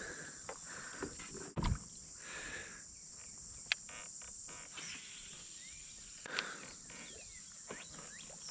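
Steady high-pitched chirring of insects, with a few scattered clicks and knocks, including a low thump about one and a half seconds in and a sharp click near four seconds.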